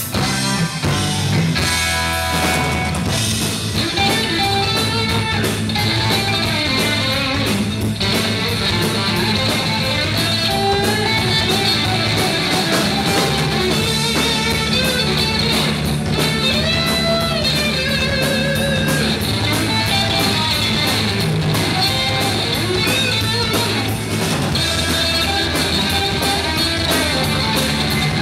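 Live rock band playing loud and without a break: electric guitar and bass guitar over a drum kit keeping a steady beat.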